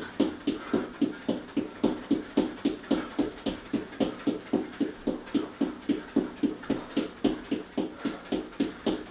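Feet landing on an exercise mat during fast high knees in place, a steady thud about four times a second.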